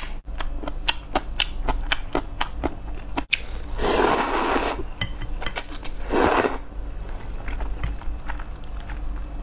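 Close-miked mouth sounds of eating instant noodles: wet chewing clicks throughout, with two loud slurps of noodles. The first slurp comes about four seconds in and lasts about a second; the second, shorter one follows a couple of seconds later.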